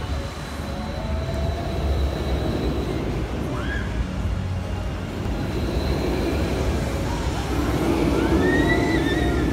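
Electric Eel launched roller coaster running: a steady rumble of the train on its steel track, with rising electric whines from its linear-motor launch system, a short one about four seconds in and a longer one that climbs and holds near the end.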